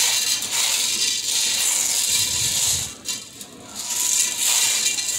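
Dry black beans rustling and rattling against a stainless steel bowl as a hand stirs through them, sorting out small stones. There is a short lull about three seconds in.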